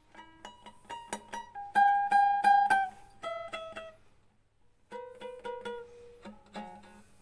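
Restored mandolin being played by hand: two short phrases of plucked notes, one note struck rapidly over and over in the first phrase, with a pause of about a second between the phrases.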